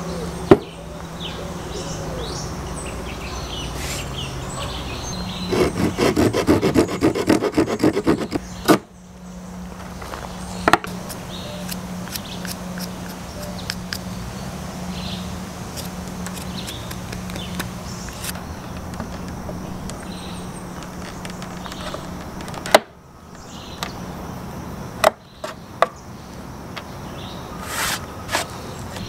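Hand saw cutting through a pruned branch in quick back-and-forth strokes, with a few sharp knocks of wood on a wooden table.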